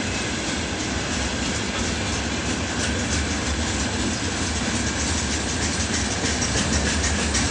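Freight train rolling past: a steady rumble of steel wheels on rail, with faint rapid clicks running through it.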